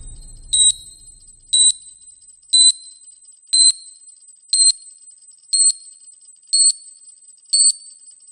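Countdown timer sound effect beeping once a second: eight short, high-pitched electronic beeps, evenly spaced. A low rumble left over from a louder effect fades out during the first second or so.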